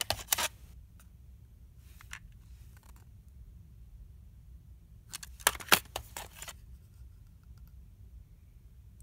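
Plastic cassette tapes and cases clicking and rattling as they are handled and pulled from the shelf, in a short burst at the start and a longer one about five seconds in, with a few single clicks between.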